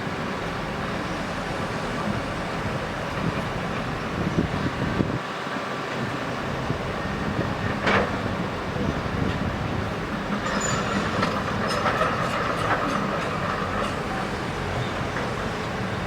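Heavy earthmoving machinery running steadily with a low rumble, with a brief metallic squeal about halfway through and a whine with scattered metal clanks a little later.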